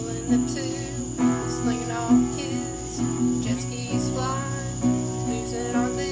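Acoustic guitar strumming the accompaniment to a song.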